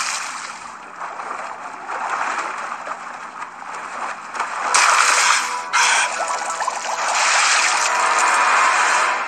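Cartoon sound effect of liquid splashing and gurgling, irregular and noisy, swelling louder about five seconds in.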